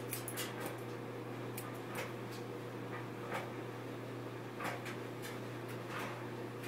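Haircutting scissors snipping hair, a handful of short separate snips spread irregularly through, over a steady low hum.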